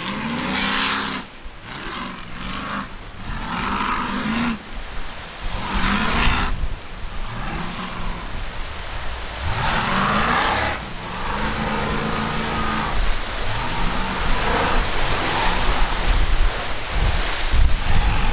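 High-performance speedboat engines revving hard in repeated surges, the pitch rising and falling about every two seconds as the boat is throttled through and over large waves. A rushing hiss of spray and wind runs underneath.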